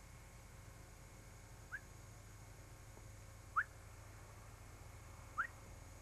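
Three short, rising whistle-like chirps about two seconds apart, the middle one loudest, over a faint steady hum and tape hiss.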